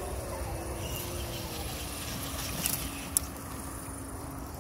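A small electric motor of an RC crawler whines as a single tone, dipping in pitch early on and then holding steady until it fades near the end. Two sharp clicks come a little past the middle, the second one loud, over a low rumble.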